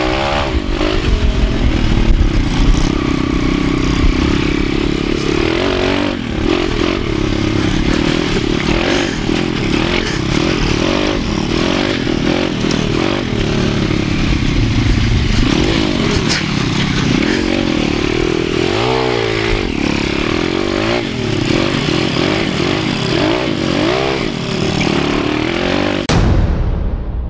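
MRF 140 pit bike's four-stroke single-cylinder engine running under load and revving up and down as it is ridden, heard from the rider's helmet with heavy wind and rolling noise. About a second before the end, the engine sound cuts off and gives way to a short sound effect that fades out.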